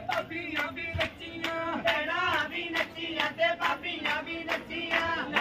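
Group singing a Punjabi wedding folk song, with sharp percussion strokes keeping time about three or four a second.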